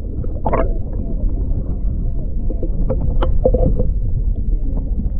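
Muffled underwater rumble picked up by a GoPro camera held beneath the lake surface, with scattered clicks and knocks from water moving around the camera housing.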